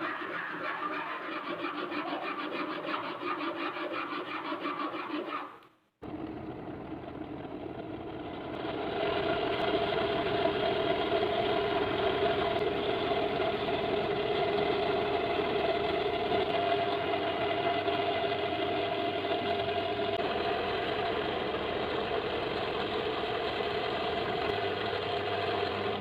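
Electric power tool running at a steady speed, with a fast rhythmic chatter. The sound cuts off suddenly about five and a half seconds in. A different steady motor sound then takes over and gets louder a few seconds later.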